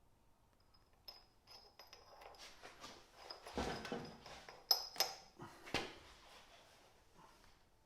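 Small metal parts clinking and knocking, with a few sharp ringing taps about halfway through: fender-washer shims, cap screws and a supercharger pulley being handled and fitted.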